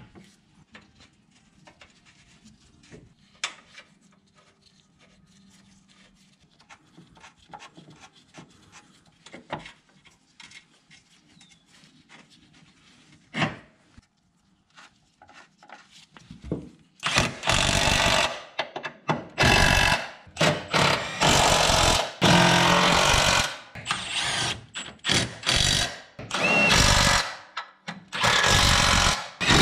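Faint clicks of parts and tools being handled, then past the halfway point a power tool running in several short bursts, driving the sway bar mounting bolts home.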